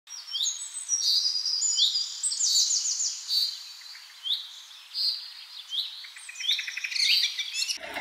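Many birds calling over one another: short, high chirps that fall sharply in pitch, mixed with quick rattling trills.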